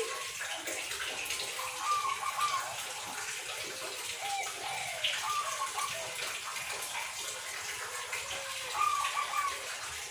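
Zebra dove (perkutut) cooing: short coo phrases repeating every second or so, over a steady background hiss.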